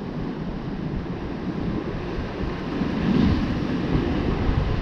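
Ocean surf washing against a coastal rock ledge, with wind noise on the microphone; a wave surges louder about three seconds in.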